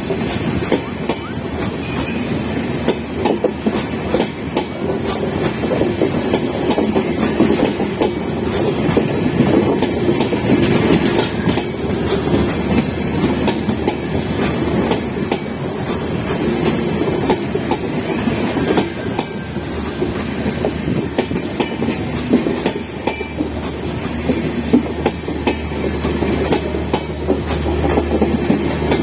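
Passenger coaches of a long Indian Railways train passing close at speed: a steady rush of wheels on rail with rapid clickety-clack knocks over the rail joints, and a low hum joining in for the last third.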